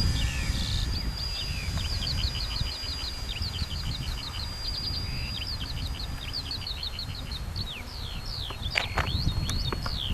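A bird chirping in rapid runs of short falling notes over a thin, steady high whistle, with wind rumbling on the microphone.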